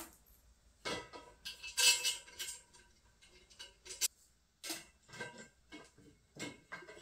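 M6 steel bolts, washers and nuts clinking against the rack's metal tubes as they are fitted by hand: a string of light metallic clicks, each ringing briefly, loudest about two seconds in.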